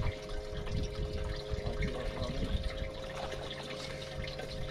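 Water lapping against a small boat's hull, with wind buffeting the microphone and a steady electric hum underneath.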